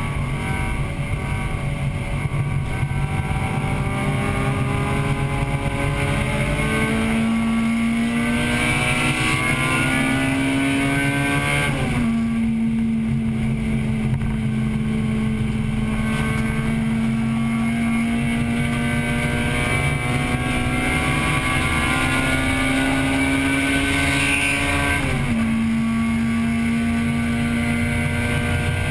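Inside the cabin of a 1998 Acura Integra Type-R race car, its 1.8-litre VTEC four-cylinder pulling hard with the pitch climbing. The pitch drops sharply twice, about 12 seconds in and again about 25 seconds in, as the driver shifts up a gear, over steady road and wind noise.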